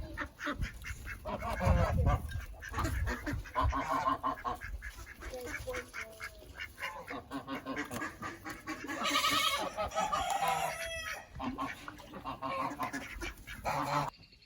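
Farmyard poultry calling over and over, several birds at once, with the loudest call about nine seconds in. A low rumble runs under the first few seconds, and the sound cuts off abruptly near the end.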